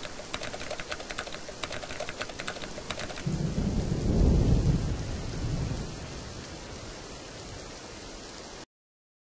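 Rain sound effect, with quick keyboard-typing clicks for about the first three seconds. A low rumble of thunder then swells, loudest about four to five seconds in, and dies away under the continuing rain. All sound cuts off abruptly near the end.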